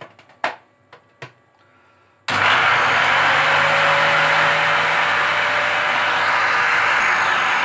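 A few sharp clicks as the lid is fitted onto a plastic blender jar, then about two seconds in the countertop blender's motor starts suddenly and runs loud and steady, grinding mint leaves with sugar, salt, lemon juice and water.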